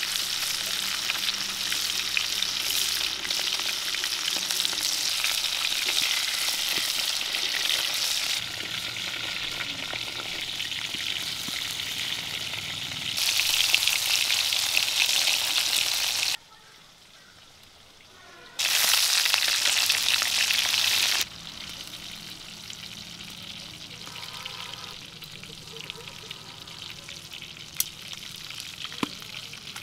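Whole climbing perch fish frying in hot oil in a pan, a dense steady sizzle and crackle, with spatula stirring. It changes level several times, drops almost away for about two seconds just past the middle, and is quieter in the last third, where a couple of sharp snaps stand out.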